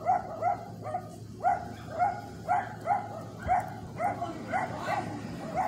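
A dog barking over and over, short pitched barks coming about two a second without letting up.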